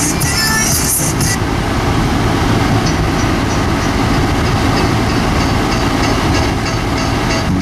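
Music from an iPod played through the car's speakers by a newly installed in-dash head unit, heavy in the bass, with a faint high tick keeping a steady beat of about three a second.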